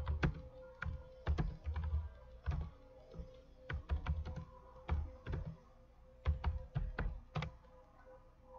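Typing on a computer keyboard: irregular clusters of key strikes with dull thumps that stop shortly before the end, over a faint steady hum.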